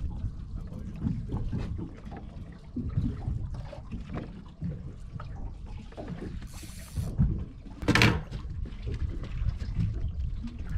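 Water sloshing against a small fishing boat's hull, with irregular knocks, a short hiss, and a sharp, loud knock about eight seconds in.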